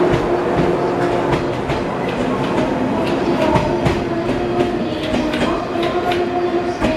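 Train running through the station, its wheels clicking irregularly over rail joints and points above a steady hum.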